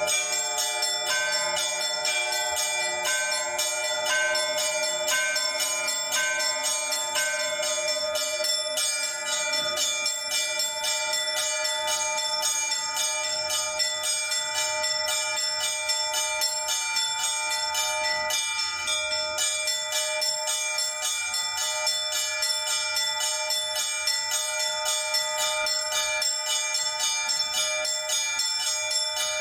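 Orthodox church bells hand-rung by a single bell ringer: a fast, continuous peal of small bells over the sustained tones of larger bells. For the first few seconds a higher bell is struck about once a second.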